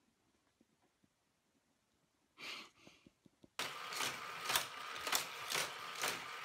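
Motorized toy car loop track set running: a steady whir with a sharp clack about twice a second as cars go through the booster. It starts suddenly a little past halfway, after near silence.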